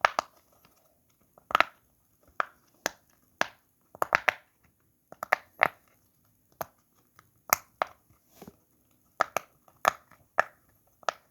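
Silicone pop-it fidget toy bubbles being pressed through one at a time, about twenty sharp pops at an uneven pace.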